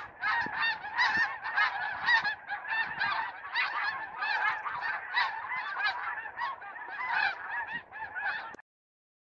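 A large flock of geese honking in flight, many short calls overlapping in a continuous din that cuts off abruptly near the end.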